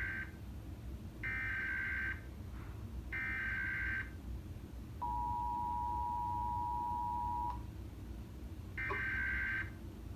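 Emergency Alert System tones: short buzzy SAME digital header bursts of under a second each, three in the first four seconds, then the two-tone attention signal held steady for about two and a half seconds, then another data burst near the end.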